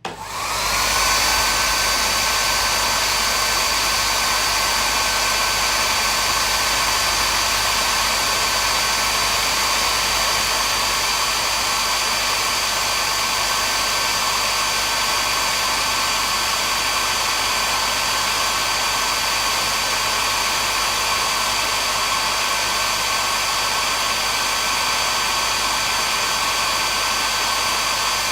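Hair dryer switched on, its motor spinning up to speed within about a second, then running steadily: a constant high whine over a rush of blown air.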